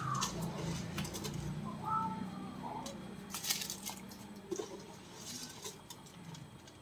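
Water splashing and sloshing with a few light clicks as a hand stirs soaked rice into hot water in a large stainless steel pot, over a low steady hum.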